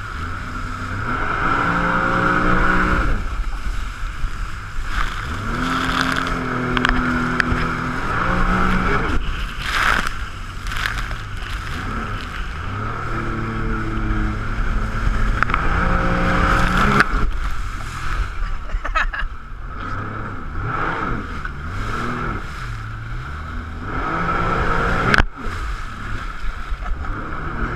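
Jet ski engine running under way, its pitch climbing and falling again and again as the throttle changes. There is a sharp knock about three-quarters of the way through.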